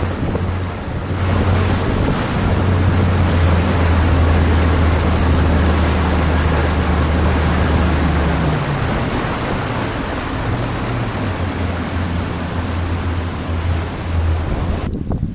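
Rigid inflatable boat running at speed: heavy rush of wind and spray on the microphone over the low, steady drone of the boat's engine. The drone eases a little about eight seconds in.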